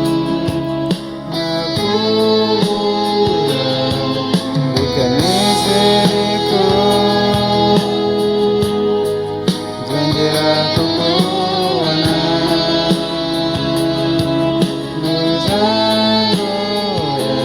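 A song: a sung vocal melody over plucked guitar and a steady beat.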